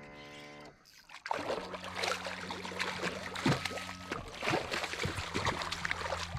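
Hooked redfish thrashing at the surface beside the boat as it is netted. From about a second in, a dense run of quick splashes and sloshing water goes on over a steady low hum.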